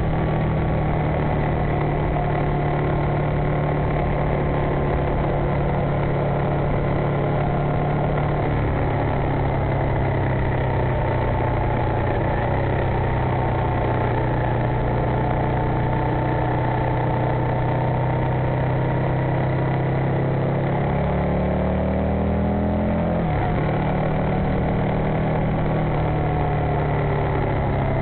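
Aprilia Mille's 998 cc V-twin engine running at steady speed under way, heard from an onboard camera over wind and road noise. About three-quarters of the way through, the revs climb for a couple of seconds and then drop sharply.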